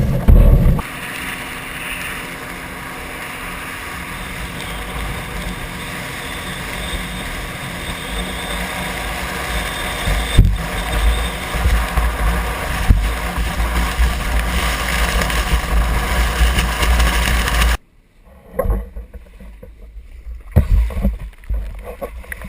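Steady rumble and rush of a boat under way, with wind on the microphone. It cuts off abruptly near the end, leaving quieter, uneven noise.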